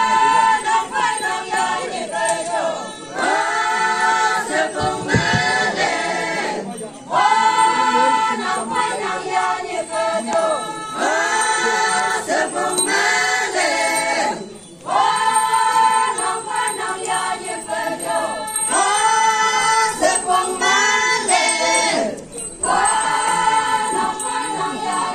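A group of women singing a traditional folk song together without instruments, in repeated held phrases with brief breaks between them.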